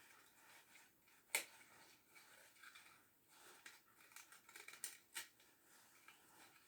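Quiet handling noises: a sharp click about a second in, then light rustling and several more clicks, as parts of an angle grinder and its dust-extraction attachment are handled and fitted.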